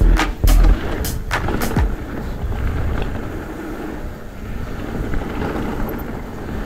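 Downhill mountain bike (Cube Two15 on VeeTire Snap WCE tyres) riding fast down a trail. In the first two seconds there are several hard knocks and clatters from bumps, then steady tyre rolling noise.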